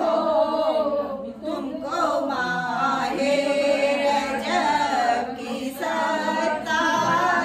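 A group of women singing a naat together without accompaniment, many voices in unison on long rising and falling lines.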